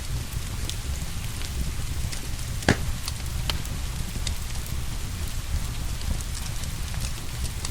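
Fireplace fire crackling with scattered sharp pops, one louder pop about three seconds in, over steady rain.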